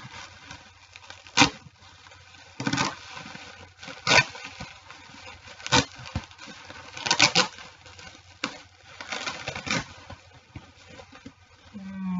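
Clear plastic packaging crinkling and crackling in a series of short, separate bursts as a bag is opened by hand.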